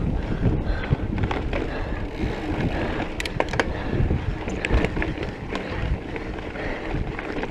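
Mountain bike riding fast down a dirt singletrack: knobby tyres rumbling over dirt and loose gravel, with wind buffeting the camera microphone. Sharp clicks and rattles from the bike and kicked-up stones come in the middle.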